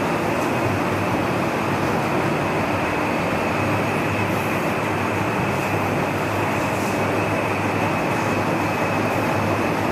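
Steady, even noise with a low hum underneath, unchanging throughout; no speech.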